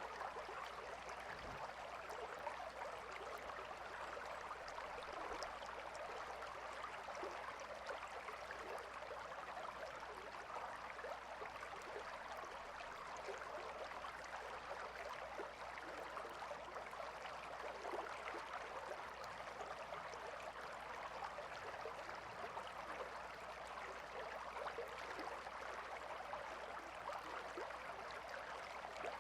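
Shallow river flowing steadily, a constant babbling rush of water.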